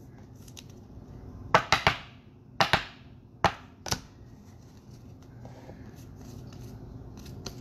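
Trading cards being handled on a table: a handful of sharp clicks and taps, some in quick pairs, bunched between about one and a half and four seconds in.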